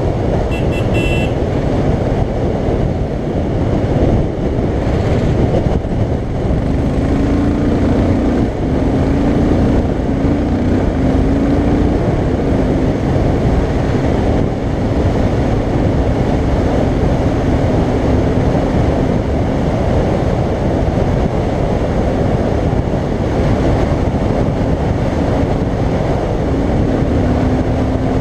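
Royal Enfield Continental GT 535's single-cylinder engine running at road speed under heavy wind rush on the camera microphone. A steady engine note comes through the rush from about six seconds in, shifting slightly a few times.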